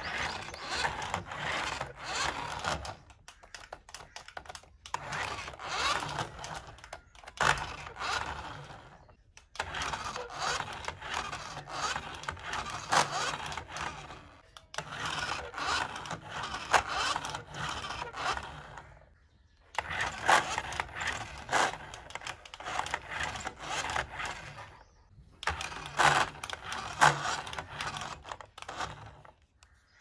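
Small electric drive motor and plastic gearbox of a 1:24-scale remote-control toy Range Rover whirring, with its wheels on the floor, in spurts of a few seconds as it drives and turns. Short pauses come between runs, about seven runs in all.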